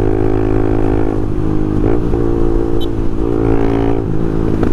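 Honda Twister's single-cylinder four-stroke motorcycle engine running at highway speed with its intake hose removed, a steady loud hum with a brief dip and rise in pitch about two seconds in.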